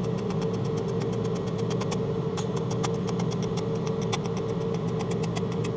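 TIG welding arc on thin heat-resistant stainless steel, buzzing steadily with frequent sharp crackling clicks as the seam is laid down in dots.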